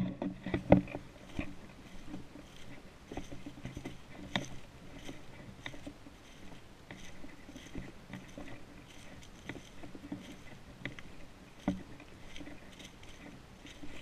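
Footsteps crunching and rustling through dry fallen leaves at a walking pace, with louder rustling in the first second and one louder step late on.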